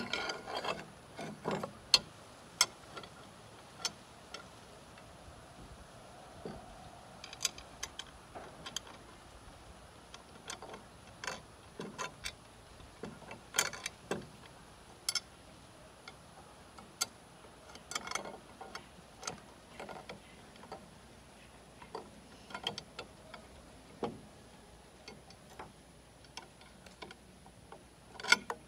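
Irregular clicks, taps and scrapes of a screwdriver and screws against the sheet-metal housing of an automatic float valve as it is assembled by hand.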